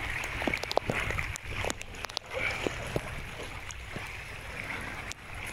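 Sea water sloshing and lapping around a stand-up paddleboard, with scattered sharp ticks and a low rumble underneath.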